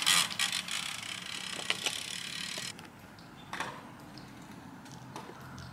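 Rear freehub of a Canyon Aeroad SLX 8 Di2 road bike buzzing with fast ratchet clicking as the bike coasts past. It stops abruptly nearly three seconds in, leaving only a few faint clicks.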